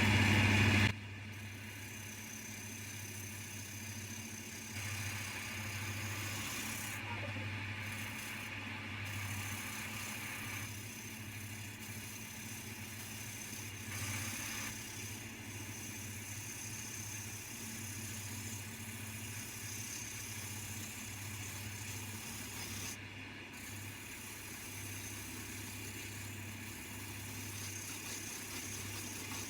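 Coronet 1 woodturning lathe running steadily at its middle belt speed with a constant motor hum. A turning tool cutting the spinning pine adds a hissing, scraping noise for a few seconds at a time, from about five to ten seconds in and again around fourteen seconds.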